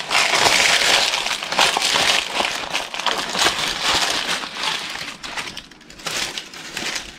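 Crinkling and crackling of wrapping being handled, a dense run of fine crackles that is louder for the first five seconds and then fades.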